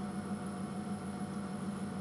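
Steady low hum with an even hiss, unchanging throughout.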